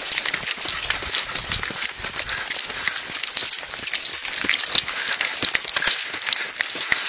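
Footsteps crunching and scuffing on dry, gravelly dirt, a quick irregular run of small crunches.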